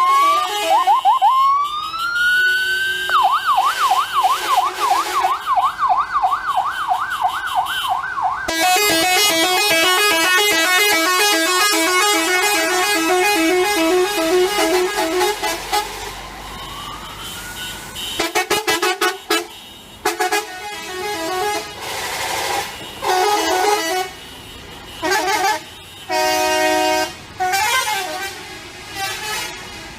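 Indonesian buses sounding their multi-tone 'telolet' horns. First comes a rising, siren-like glide that turns into a fast up-and-down warble. Then a rhythmic tune of several notes plays, and after that come short horn blasts of stacked notes.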